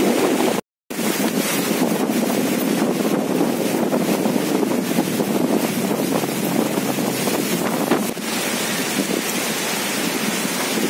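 Strong wind blowing hard against the microphone, a loud, steady rushing noise. It drops out to silence for a moment under a second in.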